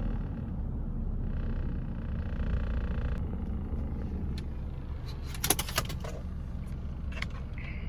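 Inside a moving car: a steady low rumble of engine and road noise, with a few sharp clicks and knocks in the second half.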